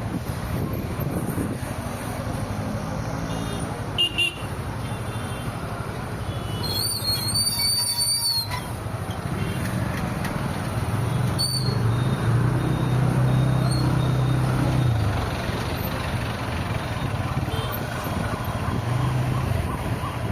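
Road traffic heard from a moving car: a steady rush of road and engine noise, a short high-pitched horn-like toot about seven seconds in, and a deeper engine hum that swells for a few seconds near the middle.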